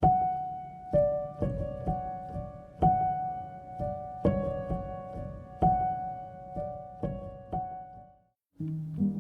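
Keyboard music: struck, piano-like notes repeating a short two-note figure over lower notes. It stops about eight seconds in, and a different passage of notes starts just before the end.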